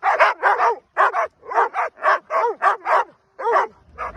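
A dog barking rapidly and repeatedly, short high barks at about three to four a second with a brief pause near the end.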